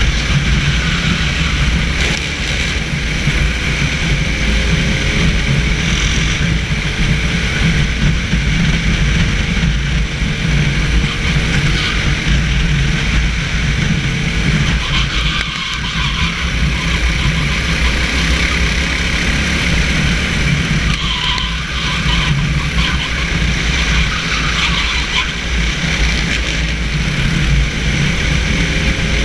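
Racing kart engine running at speed, heard from the kart itself with heavy wind and road rumble; the engine note rises and falls faintly through the corners. Tyres on the wet track add a spray hiss.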